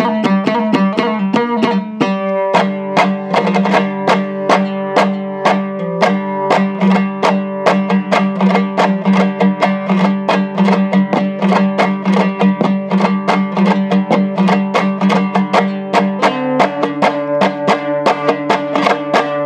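Instrumental Hazaragi folk music: a plucked string lute played in quick, steady strokes over a sustained low drone note, with no singing. The low note changes near the end.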